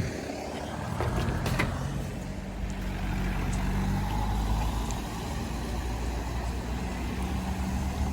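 A road vehicle's engine running steadily, with a short sharp knock about one and a half seconds in.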